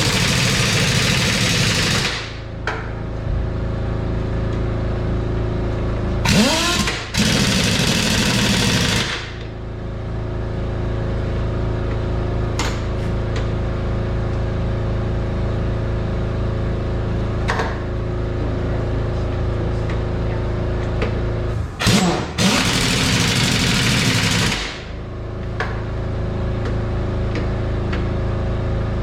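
A steady engine-like hum runs throughout, broken three times by loud bursts of hissing, each two to three seconds long and opening with a quick rising whine.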